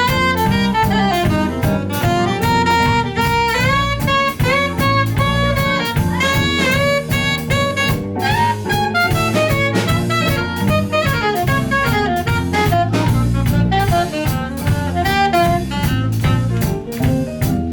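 A jazz ensemble playing an instrumental number live, with a lead melody line over drum kit and bass.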